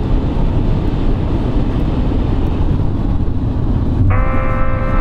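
Steady, loud, low engine rumble. About four seconds in, a sustained pitched tone starts over it and holds.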